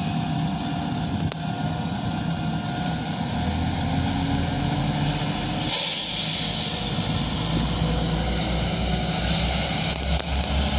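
Class 172 Turbostar diesel multiple unit pulling away from the platform, its diesel engines running and rising in pitch as it accelerates past. Near the end a second train's low rumble builds as it comes in.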